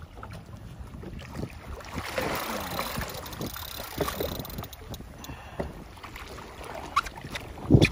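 Water splashing as a hooked blacktip shark thrashes at the surface beside a small boat, loudest from about two seconds in. There are scattered knocks, and one loud sharp knock just before the end.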